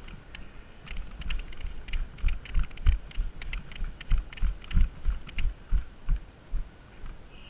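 Footsteps of an airsoft player on the move, a steady run of dull thuds about two to three a second, with light clicks and rattles of carried gear.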